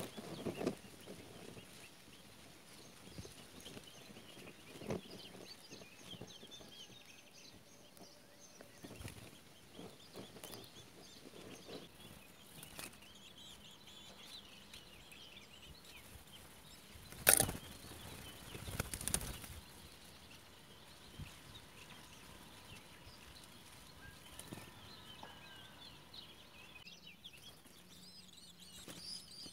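Woodchat shrike nestlings begging with faint, thin, wavering high calls that grow plainer near the end, broken by a few sudden flurries of wingbeats and rustling as the adult comes and goes at the nest, the loudest about 17 seconds in.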